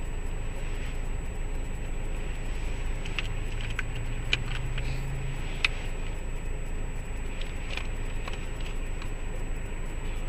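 Steady low rumble of a car idling, heard from inside the cabin, with a handful of light clicks and taps in the middle from small items being handled by hand.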